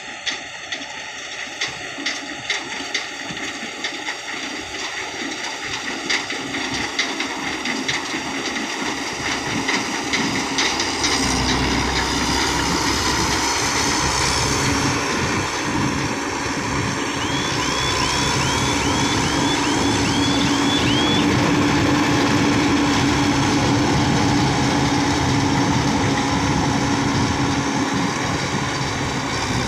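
John Deere W70 combine harvester running as it harvests paddy rice: a steady mechanical drone that grows louder about ten seconds in as the machine draws close.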